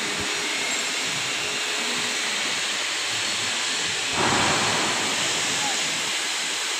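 Steady hiss of construction-yard background noise, with a brief louder rush of noise about four seconds in.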